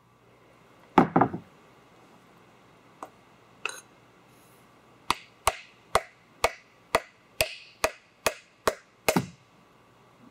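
Wooden mallet handle knocking down into an AeroVee engine cylinder to drive the piston out: one loud knock about a second in, two lighter ones, then a steady run of about ten sharp knocks, roughly two a second.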